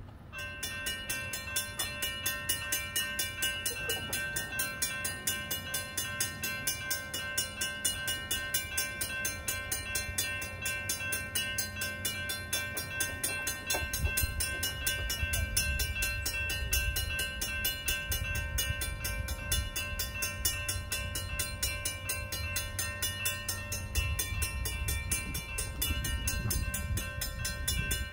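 Railroad crossing warning bells start ringing suddenly as the crossing activates: a Safetran mechanical bell striking rapidly over the steady ring of a General Signals type-2 electronic bell, the two sounding together without a break. A low rumble joins about halfway through.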